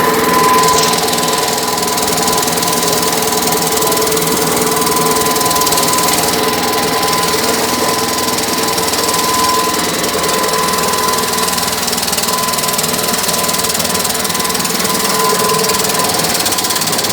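Gasoline-engine-powered air compressor running steadily: a rapid mechanical chatter with a steady high tone over it.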